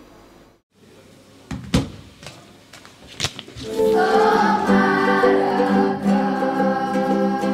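Two sharp hits, then background music with sustained choir-like voices comes in about four seconds in and carries on.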